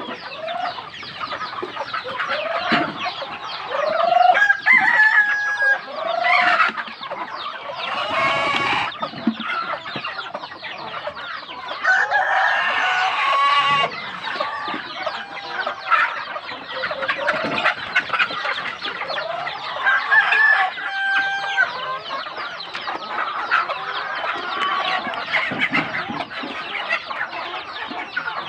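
A large flock of chickens clucking and calling continuously, with roosters crowing a few times.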